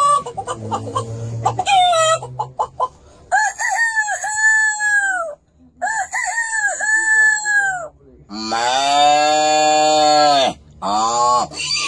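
A man imitating a rooster with his voice: two crowing calls of about two seconds each, then a long held call and a run of short calls near the end.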